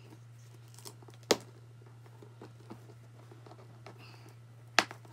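Fingers picking and scratching at the sealed cardboard box of a new laptop, with two sharp clicks on the cardboard, one about a second in and one near the end, over a steady low hum.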